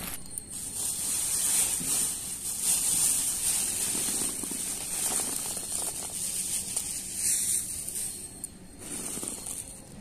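Thin plastic bag crinkling and rustling as dried lentil nuggets are poured out of it onto a cloth. The rustle dies down about nine seconds in.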